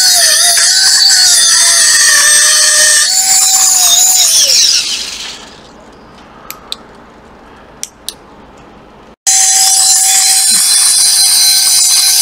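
Small pen-style rotary cutting tool whining at a high pitch as it cuts through the soldered metal shield on an iPhone XR logic board. About four and a half seconds in, the whine drops in pitch and dies away, leaving a few seconds with only a couple of light clicks. Then the whine starts again abruptly and carries on.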